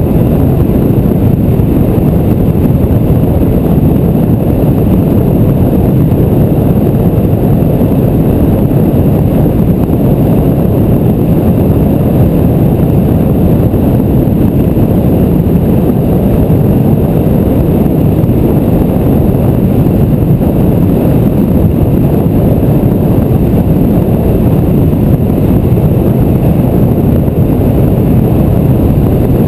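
Steady, loud rumble of wind and road noise from a car driving at speed, picked up by an exposed camera microphone mounted low on the outside of the vehicle.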